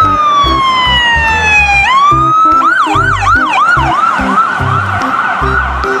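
Police siren: a long falling wail, then rapid up-and-down yelping sweeps about three a second, over background music with a steady beat.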